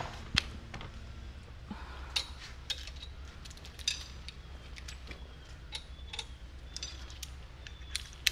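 Irregular light metallic clicks and clinks, a few ringing briefly, from hand tools and connecting-rod parts being handled on a BMW S54 engine during teardown. A steady low hum runs underneath.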